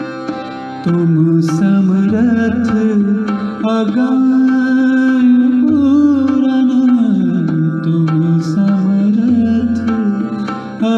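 A man singing a Hindi devotional bhajan over a steady drone and tabla accompaniment. His voice comes in about a second in, with long held notes that slide and bend between pitches.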